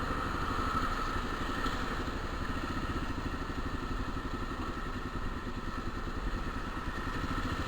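Motorcycle engine running steadily while being ridden, with an even, fast pulsing from its firing and no big change in speed.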